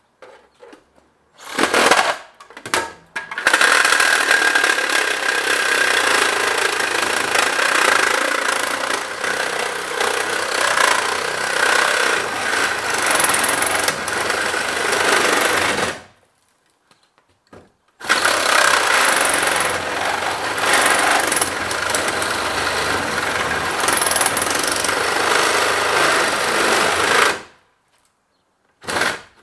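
Cordless Milwaukee Sawzall reciprocating saw cutting through the metal arm of a pickup's tow mirror. A few short starts, then two long runs of sawing of about twelve and nine seconds with a pause between, and one brief blip near the end.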